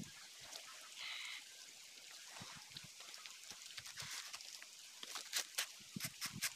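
Faint outdoor sounds: a short high call about a second in, then a few sharp snaps and cracks near the end as a fibrous banana stalk is handled and broken by hand.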